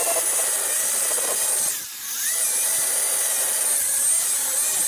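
Angle grinder cutting into a metal piece clamped in a vise, sold as a drilled neodymium magnet, with a steady high whine. About two seconds in the cut eases briefly and the motor's pitch dips and then climbs back before cutting resumes; it stops at the very end.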